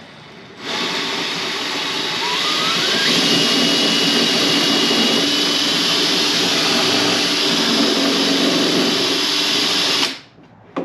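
Power drill running continuously for about nine seconds while drilling out a pop rivet, its whine rising in pitch a couple of seconds in and then holding steady; it stops suddenly near the end.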